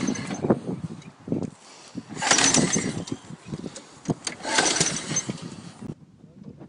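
Ride-on mower engine being pull-started by hand: two pulls about two seconds apart, each a short cranking burst, and the engine does not catch.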